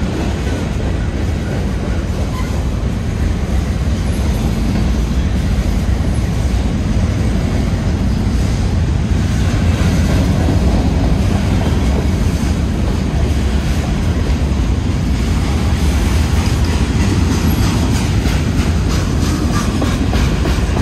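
Freight train of covered hopper cars rolling past at close range: a steady rumble of steel wheels on rail, with wheels clicking over the rail joints, more often near the end.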